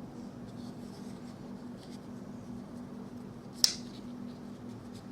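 Faint rubbing and light clicks from a folding metal bicycle multitool being handled, over a steady low hum. One sharp click comes about three and a half seconds in.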